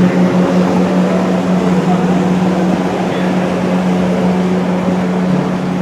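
Boat engine running at a steady pace, a constant low drone over the rush of water and wind.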